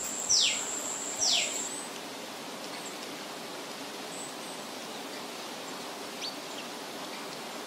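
Outdoor rural ambience: a bird gives two short calls, each sweeping quickly down in pitch, over a high steady buzz that stops about two seconds in. After that only a steady, even background hiss remains.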